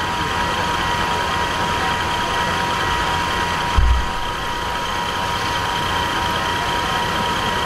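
Steady hum of idling vehicles with a thin steady whine running through it, and a brief low thump about four seconds in.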